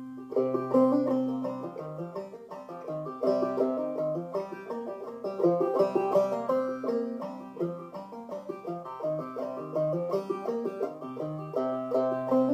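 Ome Tupelo open-back banjo played clawhammer style in double C tuning: a minor-key old-time melody of quick plucked notes over a steady low ringing note.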